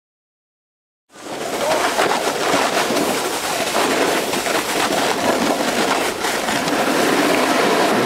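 Loud rushing noise of snowboards sliding over snow and wind on a camcorder microphone, starting suddenly about a second in after silence.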